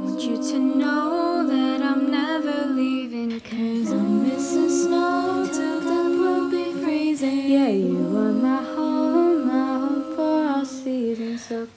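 Girls' choir voices singing a wordless a cappella harmony, several parts held together with occasional sliding pitches.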